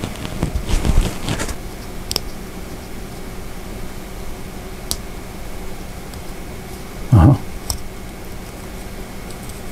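Small metal stepper-motor parts handled in the fingers: rustling knocks in the first second and a half, a few sharp clicks, and a dull thump about 7 seconds in, over a steady background hum.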